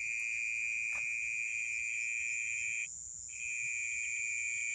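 Steady, high-pitched chorus of night insects, two continuous shrill tones, the lower one stopping for about half a second about three seconds in. A faint click about a second in.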